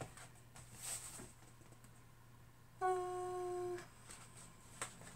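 A woman humming one steady note for about a second, midway through. Soft paper rustles of book pages being handled come before and after it.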